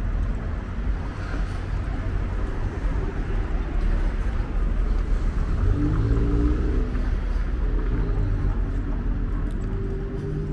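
Town street ambience: a steady low rumble of road traffic, loudest around the middle.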